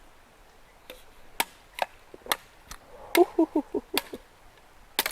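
A series of sharp, irregularly spaced knocks, about seven in all, with a brief cluster of short low pitched sounds in the middle.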